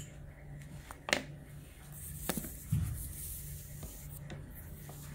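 Felt-tip marker drawing on card, with a few sharp clicks and a knock as markers are handled, the loudest click about a second in. A steady low hum runs underneath.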